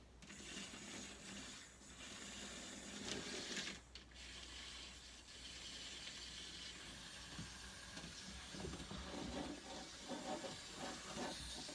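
Toy train's small motor running faintly on its track, a steady whir with light mechanical clicking in the second half.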